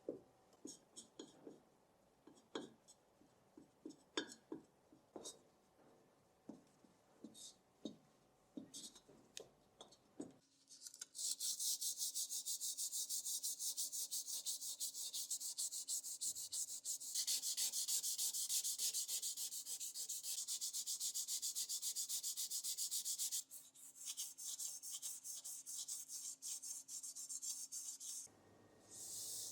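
Scattered light clicks and taps of small parts being handled. About a third of the way in, fast, steady hand scrubbing of a heater part starts, in rapid even strokes. It breaks up for a few seconds and picks up again near the end.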